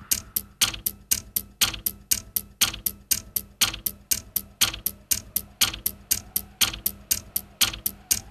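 Clock ticking steadily, about four ticks a second, over a faint steady low tone.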